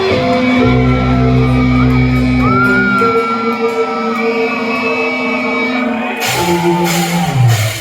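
Live rock band playing in a hall: distorted guitar and bass holding long notes, then loud crashing drum hits come in about six seconds in.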